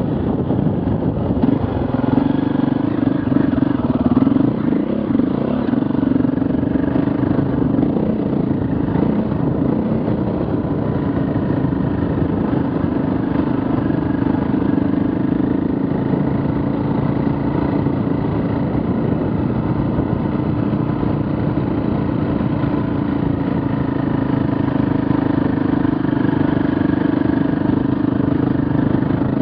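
KTM 450 EXC's single-cylinder four-stroke engine running steadily while the trail bike is ridden uphill on a dirt track, its note wavering a little with the throttle.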